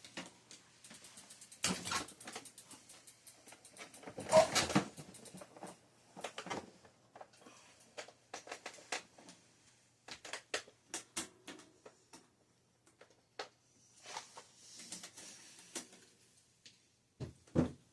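Scattered small clicks and knocks of hands and tools working on a bicycle's rear derailleur, the loudest cluster about four and a half seconds in.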